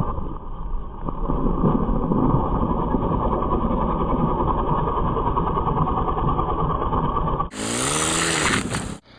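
Small youth ATV engine running as a child rides the quad along, heard thin and rough with no clear note. About seven and a half seconds in the sound cuts abruptly to a clearer stretch whose pitch rises and falls.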